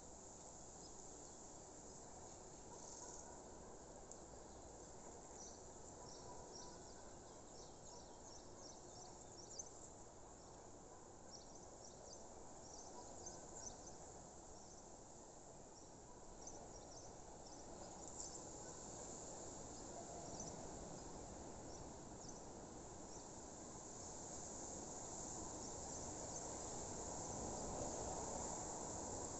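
Faint outdoor nature ambience: many short, high insect chirps over a low, even rustling haze that grows louder toward the end.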